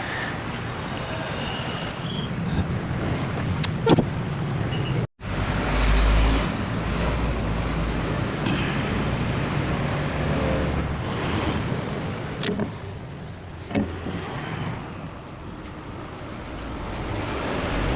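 Steady background road-traffic rumble with a few short, sharp knocks.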